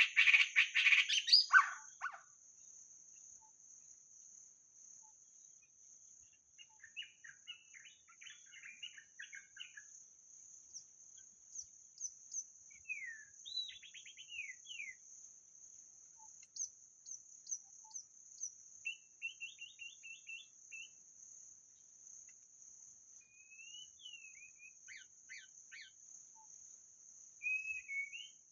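White-rumped shama song: a loud burst of rich, fast notes at the start, then scattered phrases of whistles, slurred glides and quick chattering runs. A steady high-pitched drone runs underneath throughout.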